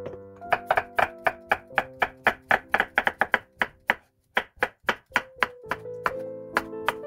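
Chef's knife slicing a cucumber on a wooden cutting board: quick, even chops about four to five a second, each blade stroke knocking on the board, easing off near the end.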